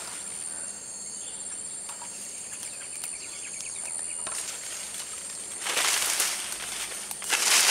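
Steady high-pitched drone of insects, crickets or cicadas, in tropical scrub. Leaves and undergrowth rustle loudly about six seconds in and again near the end.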